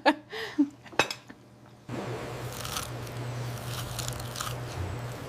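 A bite into crisp, flaky baked pastry, followed by crunchy chewing. A sharp crack comes about a second in, and a steady low hum runs underneath from about two seconds.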